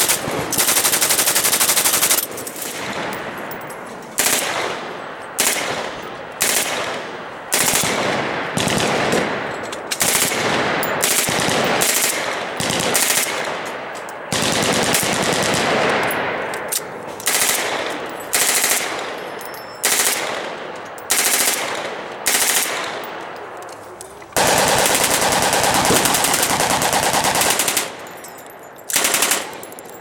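Full-automatic machine guns firing burst after burst of rapid shots, some short and some long, each trailing off in echo. The longest bursts come right at the start and about two-thirds of the way through.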